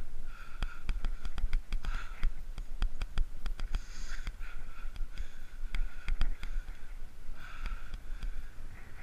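Bicycle ride noise on a paved path: frequent sharp clicks and rattles from bumps, a low rumble, and a hiss that swells and fades about once a second.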